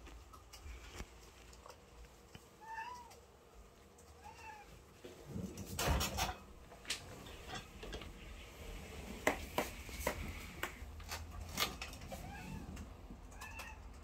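Domestic cat chattering at a pigeon it is watching: short chirping calls that rise and fall, two in the first five seconds and two more near the end. Around the middle a loud thump and a few sharp knocks break in.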